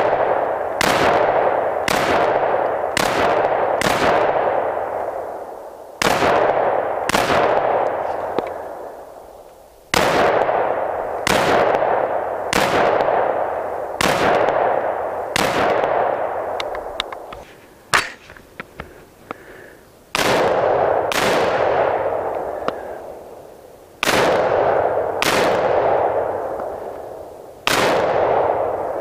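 AR-15 rifle fired semi-automatically: single sharp shots roughly one a second, each with a long echo dying away behind it, with short pauses between strings.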